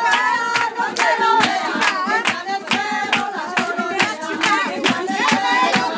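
A group of voices singing together over rhythmic hand clapping, about three claps a second, in celebration of the bride's handkerchief ceremony.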